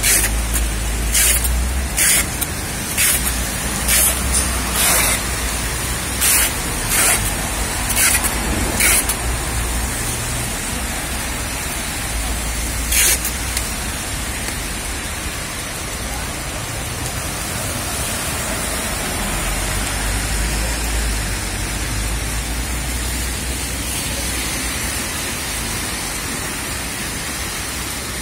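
Steady hiss of heavy rain on a city street, with road traffic passing. In the first nine seconds or so a string of short, loud bursts of noise stands out, and one more comes about thirteen seconds in.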